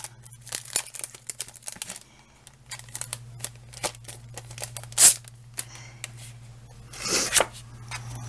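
Plastic packaging of a set of craft cutting dies being opened and handled: irregular crinkling, rustling and clicks, with one loud click about five seconds in and a burst of rustling near the end. A low steady hum runs underneath.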